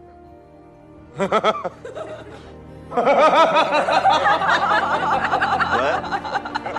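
A man laughing in long, wavering peals over background music, starting about a second in and growing louder about three seconds in.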